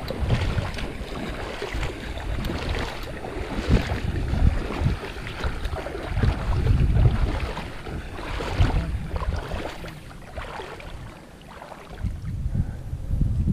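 Wind buffeting the microphone in uneven low gusts, with water sloshing and splashing around legs wading through shallow water.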